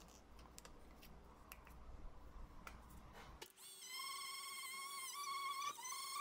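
Faint handling clicks, then about three and a half seconds in a small die grinder starts up with a high, steady whine. It runs a unitizing disc against a mild-steel corner, and its pitch dips briefly as the disc is pressed in near the end.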